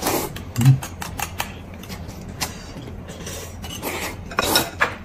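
Close-miked eating sounds: rice noodles slurped and chewed, with many short wet clicks and smacks and a louder slurp near the end.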